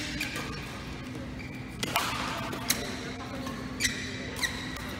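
Badminton rally: sharp racket strikes on the shuttlecock, several in a few seconds, mixed with brief high squeaks of court shoes on the floor.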